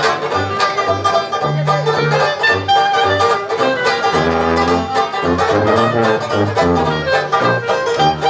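Dixieland jazz band playing live: a traditional jazz tune over a bass line that moves in short separate notes.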